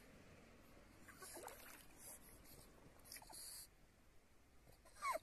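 Pug whining faintly in short falling whines, a couple of soft ones and a louder one near the end, as it strains toward ducks it wants to reach.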